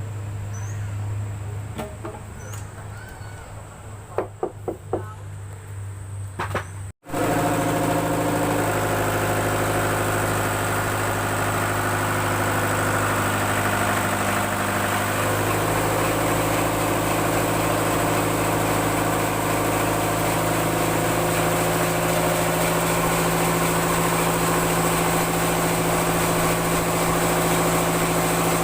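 Sawmill engine running steadily, its pitch shifting slightly a couple of times. Before an abrupt break about seven seconds in, a quieter low hum with a few sharp knocks.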